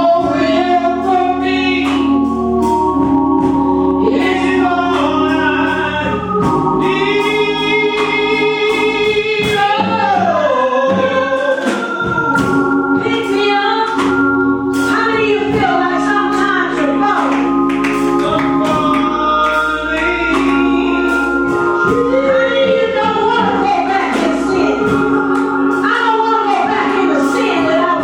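Gospel choir singing with organ accompaniment, the voices sliding between held notes over sustained organ chords.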